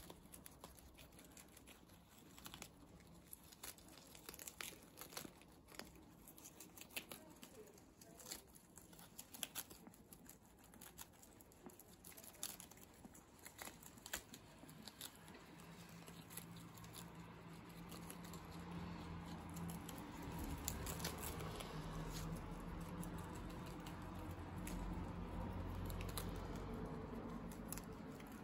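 Guinea pigs chewing and tearing lettuce leaves: many quick, crisp crunches and leaf rustles. A low steady hum comes up in the second half.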